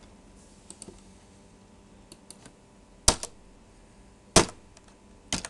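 Sparse clicks of a computer mouse and keyboard: a few light taps, then sharp loud clicks about three seconds in, a louder one near four and a half seconds, and a quick pair near the end.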